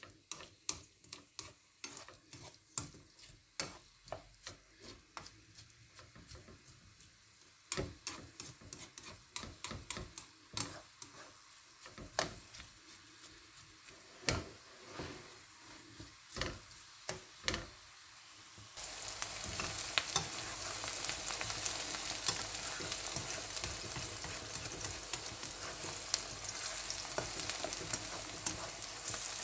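Black plastic slotted spatula stirring sliced onions in oil in a nonstick pan, knocking and scraping against the pan in quick strokes. About two-thirds of the way through, a steady sizzle of the onions frying in hot oil starts suddenly and stays loud, with a few scrapes over it.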